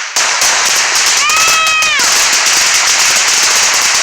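Ground firework going off with a loud, dense run of rapid crackling pops that starts just after the beginning and keeps going. A short high-pitched cry, like a child's squeal, rises and falls about a second in.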